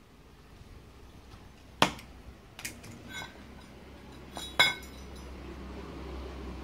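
Gas welding torch being lit: a few sharp metallic clicks, the loudest about two seconds in and again past four seconds, then a steady hiss of gas that grows louder near the end as the flame is opened up.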